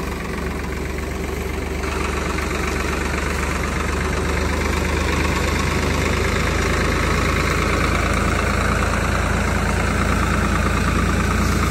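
Farm tractor's diesel engine running steadily under load as it slowly tows a stuck SUV on a recovery strap, getting a little louder about two seconds in.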